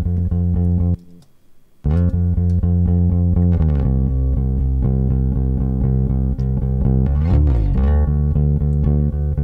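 Recorded bass line playing back through a compressor whose ratio and threshold are set to even out its level. It is made of sustained low notes, with a short break about a second in and a slide in pitch near the end.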